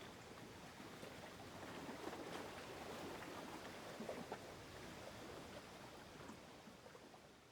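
Faint outdoor ambience with soft scattered scuffs and rustles.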